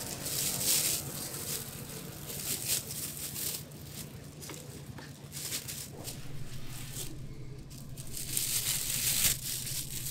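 Thin plastic bags rustling and crinkling in irregular bursts as fried bread sticks are packed into them by hand, over a faint steady low hum.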